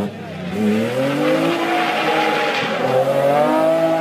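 BMW 3 Series Compact rally car's engine accelerating hard as it passes, revs climbing then holding high, with a short dip in revs about three seconds in at a gear change before it pulls again. A hiss of tyre noise rises with it.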